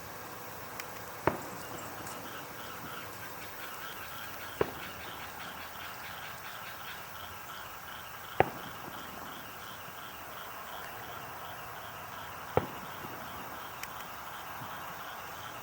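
A steady pulsing chorus of night insects, with four sharp cracks a few seconds apart: distant fireworks bursting.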